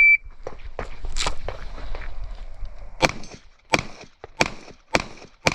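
Shot timer's start beep, then an airsoft pistol firing: one shot about a second in, then five shots in quick succession from about three seconds on, roughly two-thirds of a second apart.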